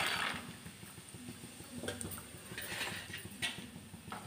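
Raw peanuts dropped into hot oil in a wok, a loud sizzle that dies down over the first half-second, then quiet frying with scattered small clicks and pops as the peanuts deep-fry.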